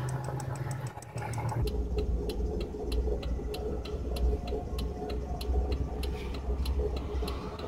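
A car's turn-signal flasher ticks steadily inside the cabin, about three ticks a second, over the low hum of the engine idling at a stop.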